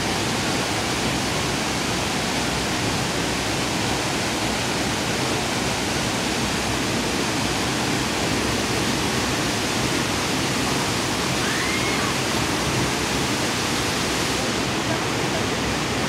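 Waterfall pouring into a rock plunge pool: a steady, even rush of falling water.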